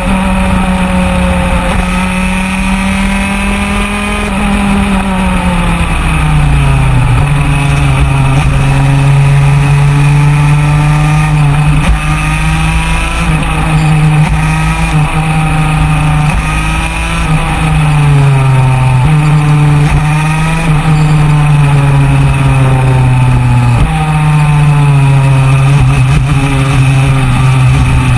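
A 125cc superkart's single-cylinder two-stroke engine running hard at racing revs, heard close from on board. Its pitch falls and jumps back up in abrupt steps several times through gear changes, braking and acceleration.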